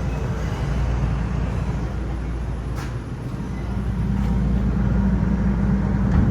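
R142 subway train running, a steady low rumble that grows louder in the second half, with a couple of faint clicks.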